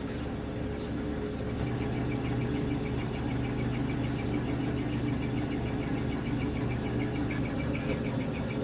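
A machine running with a steady hum, a little louder from about two seconds in, with a faint, even ticking from then on.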